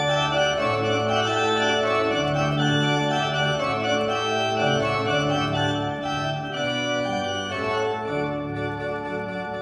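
Organ playing slow, held chords over a bass line that changes note every second or so, as a prelude before a worship service; it grows a little softer near the end.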